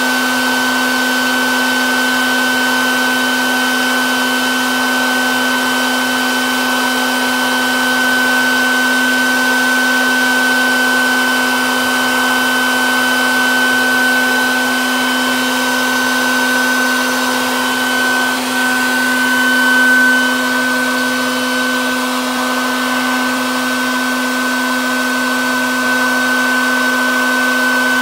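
A Colorado Bee Vac bee vacuum's motor running steadily with a constant hum, its hose sucking up honeybees from an exposed comb. The hum falters briefly about two-thirds of the way through.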